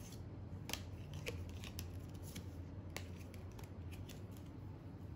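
Faint, scattered light clicks and taps, a dozen or so at irregular spacing, over a steady low hum.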